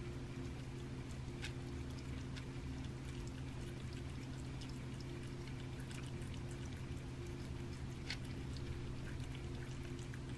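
Cat eating raw rabbit meat: irregular wet chewing and licking clicks and smacks, over a steady low hum.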